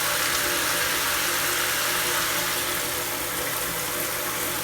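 Water running steadily from a tap or shower, splashing onto toys in a bath.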